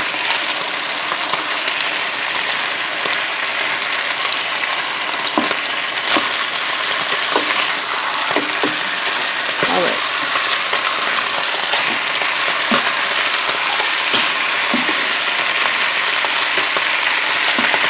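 Chicken breasts sizzling in hot oil in a multi-cooker pot, a steady frying hiss, with occasional light clicks of tongs against the pot as the pieces are turned.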